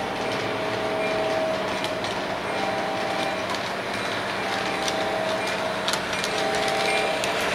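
O gauge MTH model train running on its track towards the listener: a steady rolling rumble with scattered clicks, growing louder as it nears, with a pitched tone coming and going every couple of seconds.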